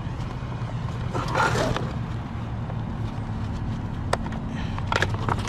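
Scrap being handled and loaded: a scraping rustle about a second in, then a few sharp knocks toward the end, over a steady low hum.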